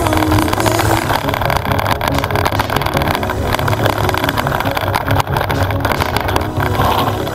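Giant Trance 27.5 full-suspension mountain bike riding fast down a rough dirt trail. The tyres roll over the ground, and rapid knocks and rattles come from the bike over the bumps.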